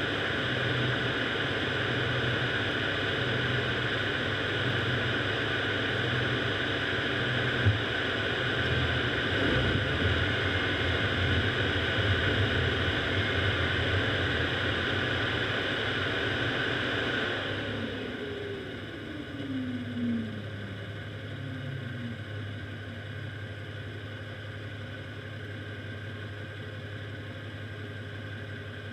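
Car driving on an ice-covered road: steady engine and tyre noise. About two-thirds through it drops off as the car slows, and a falling whine follows as it comes nearly to a stop.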